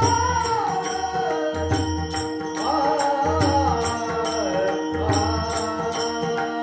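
Devotional song: a solo voice sings a gliding, ornamented melody over a steady drone and a regular percussion beat.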